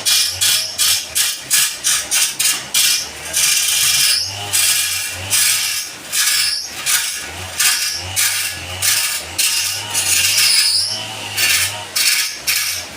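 Turning tool cutting into wood on a lathe in a quick series of short scraping strokes, about two a second, over a low hum that comes and goes.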